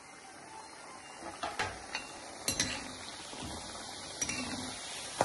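Metal slotted spoon clinking sharply against a metal kadhai a few times while turning pieces of moong dal namkeen deep-frying in hot oil. Under the clinks runs the steady hiss of the frying oil, which grows louder in the first second.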